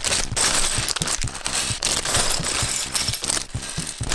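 Clear plastic bag of LEGO parts crinkling as it is torn open, with small plastic bricks clattering and spilling out onto a wooden tabletop.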